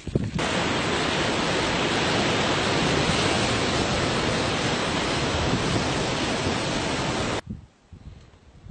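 Steady, even rushing noise of surf and hissing steam where lava pours off a sea cliff into the ocean. It starts suddenly and cuts off abruptly about seven seconds later.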